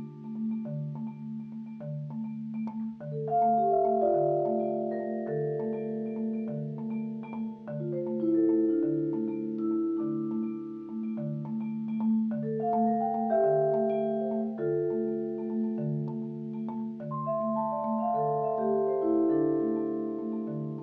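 Majestic vibraphone and marimba played together with mallets: a steady repeated low pulse under long, ringing melody and chord notes that overlap and sustain for several seconds.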